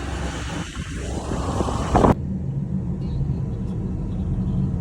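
Vehicle noise: a loud, wide hiss over a low rumble, with a rising sweep in pitch, cuts off abruptly about two seconds in, leaving a steady low rumble.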